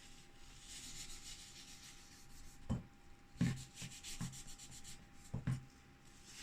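A piece of paper wet with isopropyl alcohol rubbed over a graphics card's heatsink, wiping off old thermal paste, with a few light knocks near the middle.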